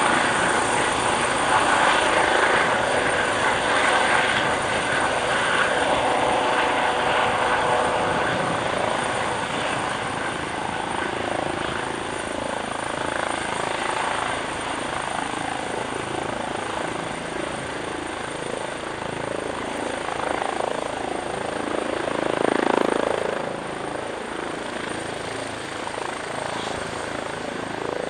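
Airbus H135 T3 twin-turbine helicopter with a Fenestron shrouded tail rotor, hovering and setting down on a helipad: steady rotor and turbine noise that gradually eases in level as it settles onto the pad.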